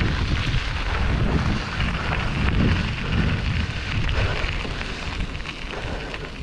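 Wind buffeting an action camera's microphone while a Giant Revel mountain bike rolls over a rough dirt trail, its tyres crunching and the bike rattling.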